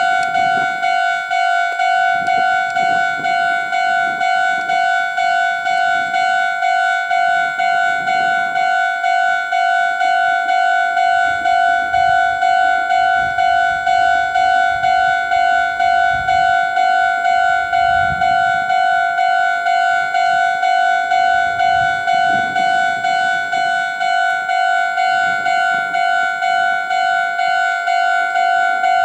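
Japanese railway level crossing warning bell ringing: an electronic ding repeating evenly about twice a second at one steady pitch.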